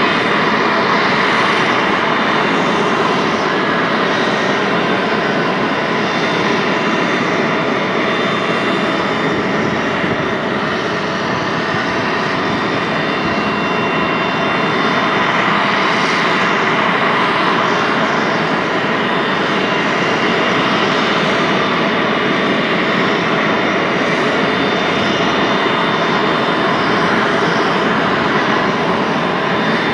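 Private jet's turbine running steadily: a loud, even rush with a thin, high, steady whine on top.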